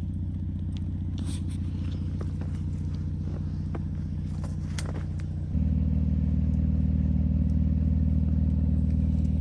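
Recovery truck's engine running steadily, then stepping up louder about five and a half seconds in as it is brought up in speed, with light scraping and clicking over it.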